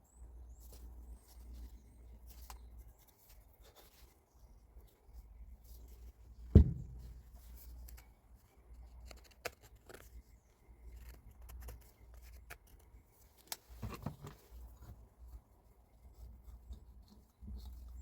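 Scattered small clicks, scrapes and rattles of tools and metal parts being handled on a workbench, with one sharp heavy knock about six and a half seconds in and a few lesser knocks around fourteen seconds.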